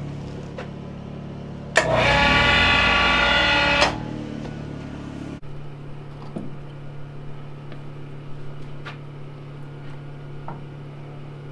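Electric hoist winch motor whining for about two seconds as it turns the log over, then cutting off. A steady low hum runs beneath it.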